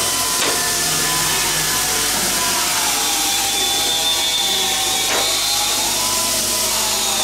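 Steady machine noise with a whine that slowly drifts down and back up in pitch, and a couple of faint clicks.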